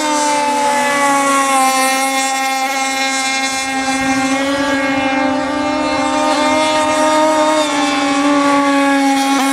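Gas RC speedboat with a QD25 two-stroke marine engine running at speed across the water. It makes a steady, high-pitched buzz whose pitch wavers slightly as the boat carves along.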